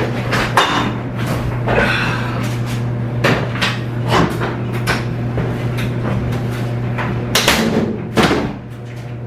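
Clunks and knocks of a washing machine's top panel being lifted and handled after its clips were popped, with two louder knocks near the end. A clothes dryer's steady hum runs underneath.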